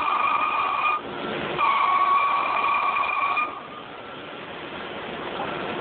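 Metal planer cutting a molding into Indiana limestone: the tool scraping along the stone with a steady high squeal. The squeal breaks off briefly about a second in, then gives way after about three and a half seconds to quieter, even machine noise.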